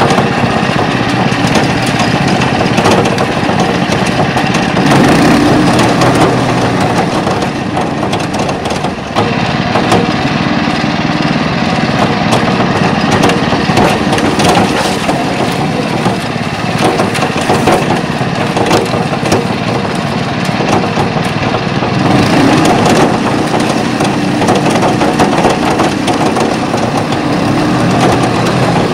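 Pasquali SB30 two-wheel walking tractor's engine running steadily as the machine drives along, heard close up, with frequent knocks and rattles from the machine over rough ground.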